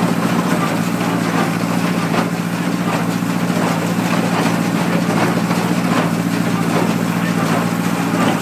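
Tractor engine running steadily while working a hay baler, with a faint regular knock about every three-quarters of a second.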